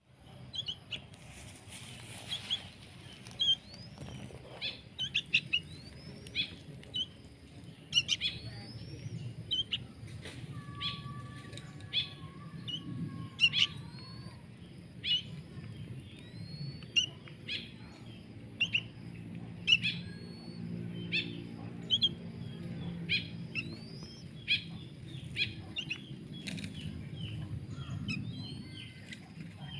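Birds chirping: a steady run of short, sharp chirps, many of them sweeping upward, several each second, over a low steady rumble. A longer held whistled tone sounds for a few seconds about a third of the way in.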